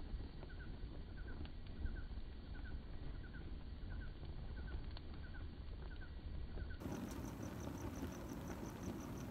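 Night insects, crickets, chirping in an even rhythm, a short double chirp about twice a second over a low steady rush, with a few faint clicks. About two-thirds of the way in the sound changes at once: a higher, faster cricket chirp of about five a second takes over and the rush grows louder.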